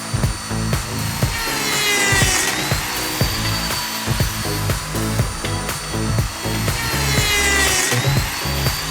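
Power tool cutting wood, its motor note rising and levelling off twice, over background music with a steady beat.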